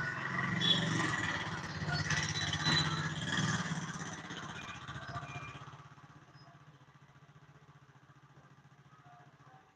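Motorcycle engine running with a fast, even beat. It is loudest in the first few seconds, fades to a faint steady beat, then stops near the end.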